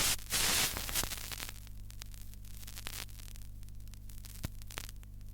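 Loud static hiss for about the first second, then a steady low electrical hum with scattered faint clicks.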